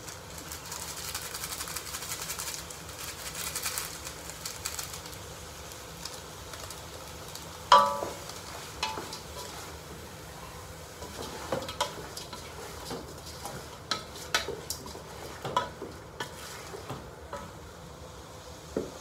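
Shrimp cooking in a large aluminium pot: a hissing sizzle for the first few seconds. About 8 seconds in comes one sharp metal clang of the pot that rings briefly, followed by scattered light knocks and clicks of handling at the pot.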